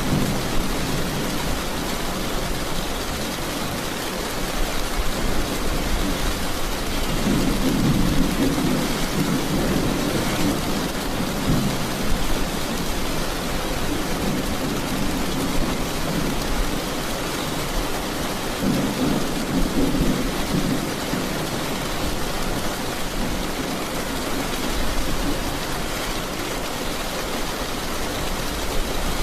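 Steady heavy rain with rolling thunder: an even hiss of rainfall, with deep rumbles that swell up about seven seconds in and again near twenty seconds.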